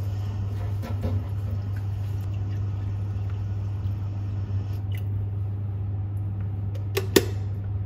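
Tap water running into a stainless-steel electric kettle as it fills, over a steady low hum. Two sharp clicks in quick succession about seven seconds in.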